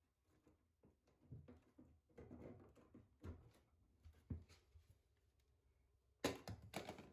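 Near silence with faint, scattered knocks and rustles of hands working at the PVC drain pipework under a bathtub, and a louder cluster of handling knocks and rustles near the end.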